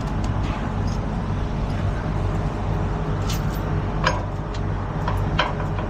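Diesel truck engine idling steadily, with a few short sharp clicks partway through.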